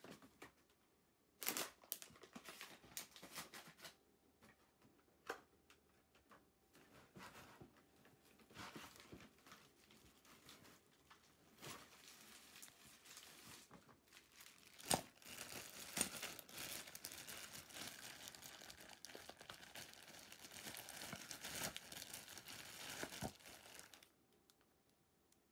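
Faint rustling and crinkling with scattered small clicks, which thickens into a steady crinkle from about the middle and stops shortly before the end.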